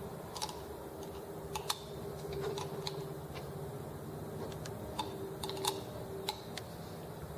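Irregular light clicks and taps of small metal parts and hand tools being handled during assembly of a model engine's ignition, over a low steady hum.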